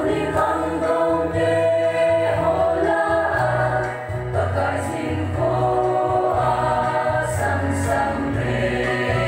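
Women's group singing a song in unison, accompanied by a large barrel drum beating a steady low pulse underneath.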